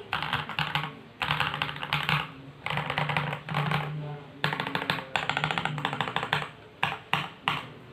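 Fantech Maxfit61 mechanical keyboard with lubed KTT Strawberry linear switches, foam dampening, tape mod and ABS keycaps, typed on in quick runs of keystrokes separated by short pauses. Near the end come three separate single keystrokes.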